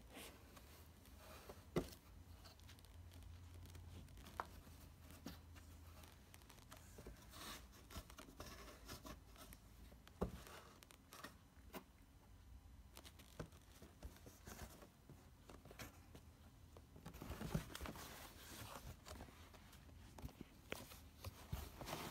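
Kittens pawing and scratching at a cardboard box: faint scratchy rustles with a few sharp taps scattered through, and a busier stretch of scrabbling about three-quarters of the way through.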